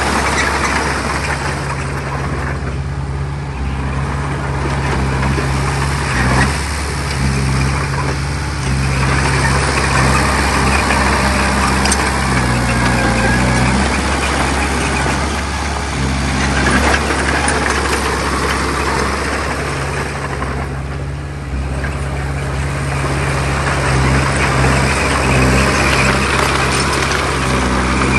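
Heavy diesel engine of earthmoving machinery running under changing load, its noise swelling and easing several times.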